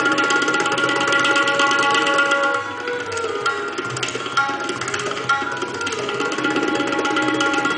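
Tabla played in fast, continuous strokes imitating a running train, the drums' pitched ring sounding under the dense rhythm; it drops a little in loudness a little under three seconds in and carries on.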